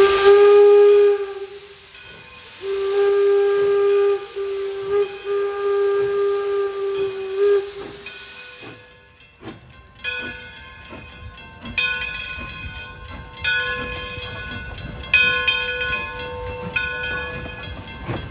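Steam locomotive whistle blowing, a short blast and then a long steady one of about five seconds, over hissing steam. In the second half, softer tones sound on and off in several pitches at once, with faint regular knocks.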